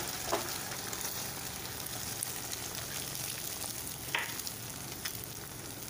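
A freshly cracked egg frying in hot oil in a wok with sliced onions and green chillies, giving a steady sizzle.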